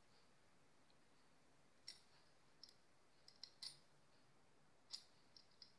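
A handheld stainless-steel knife sharpener being turned over in the hand: a few faint, scattered metallic clicks and taps from its plates and wheels, with near silence between.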